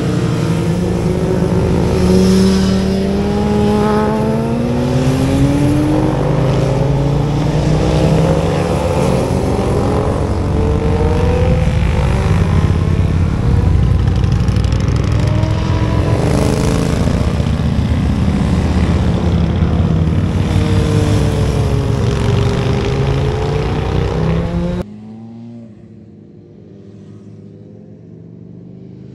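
Several motorcycles accelerating through a hairpin bend one after another, their engines revving up and easing off so the pitch keeps rising and falling as they pass. The sound cuts off abruptly near the end, leaving something much quieter.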